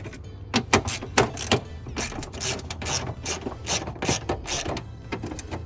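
Hand ratchet with a 10 mm socket on an extension clicking in quick, uneven runs of strokes as it backs out a bolt.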